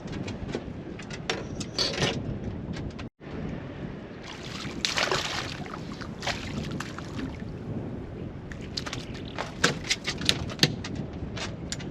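Water sloshing and slapping against a boat hull, with many short knocks and clicks scattered through.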